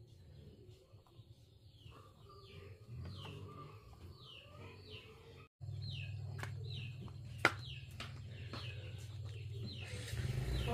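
A bird chirping over and over in short falling notes, about two a second, over a low steady hum, with one sharp knock about seven and a half seconds in.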